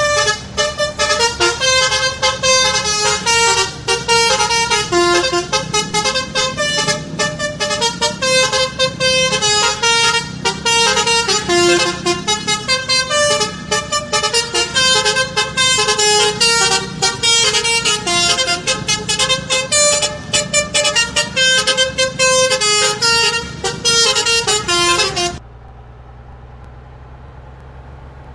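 Basuri telolet horn on a bus playing a fast melody of rapidly changing horn notes, then cutting off suddenly about 25 seconds in. A quieter steady low hum of the bus is left running.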